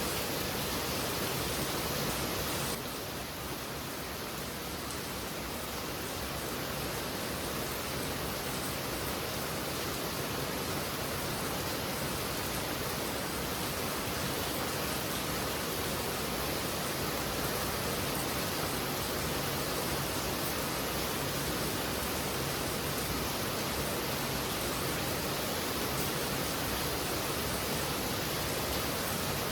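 Heavy rain falling steadily, a dense even hiss. About three seconds in it drops slightly quieter and duller, then builds back over the next few seconds.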